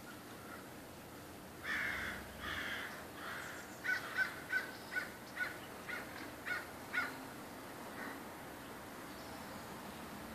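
Crows cawing while mobbing a raptor: three longer harsh caws, then a quick run of about eight short caws that trails off.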